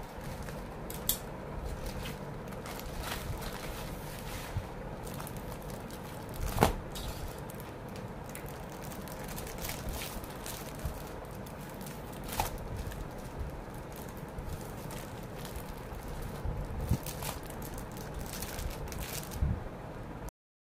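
Scissors cutting open a plastic courier mailer, then the crinkling and rustling of the item's clear plastic packaging as it is pulled out and handled, with occasional sharp clicks, the loudest about six and a half seconds in.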